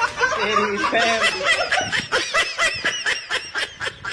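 A person laughing hard in rapid, high-pitched bursts, about seven a second through the middle.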